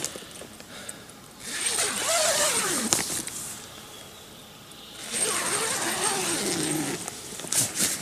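Tent zipper pulled in two long rasping strokes about two seconds each, separated by a short pause, with a few small clicks around them.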